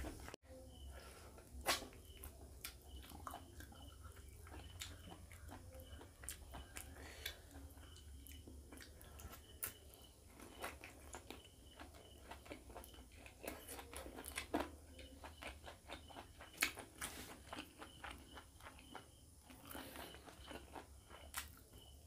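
Close-miked eating by hand: fingers tearing chicken leg meat and mixing rice and curry on a plate, with chewing and lip smacks. These come as scattered soft clicks and smacks over a faint steady low hum.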